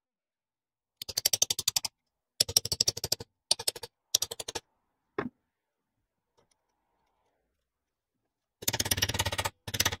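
Rapid, evenly spaced mechanical clicking in several short bursts of under a second each, with a lone click about five seconds in and a longer burst starting near the end.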